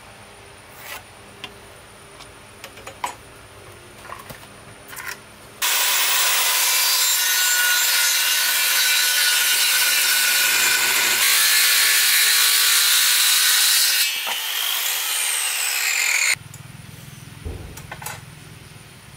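Handheld Makita circular saw cutting through a thick wooden plank for about ten seconds in the middle, ending in a falling whine and then stopping abruptly. Before and after it, light taps and scrapes of marking the board with a steel square.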